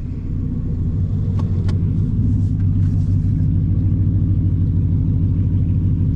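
Car engine running with a steady low rumble, with a couple of faint clicks about a second and a half in.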